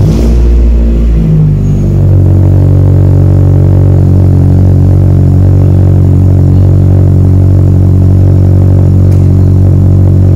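Honda Fit GD's four-cylinder engine idling through a Skunk2 Megapower aftermarket exhaust, a loud, steady, deep drone at cold-start idle. The revs drop and settle in the first second or two, then hold even.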